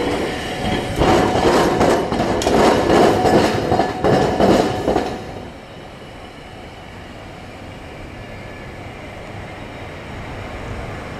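Iyotetsu Moha 2000-type tram's wheels clattering over a railway diamond crossing: a rapid run of loud clacks and bangs for about four seconds. After that the sound drops to a steady, quieter running noise as the tram moves away.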